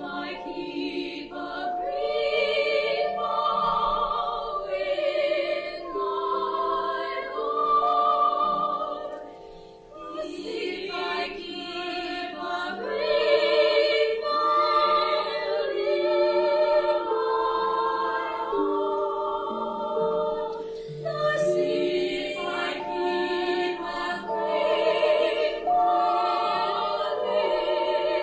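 A group of voices singing a song together in phrases, with a short break between phrases about ten seconds in.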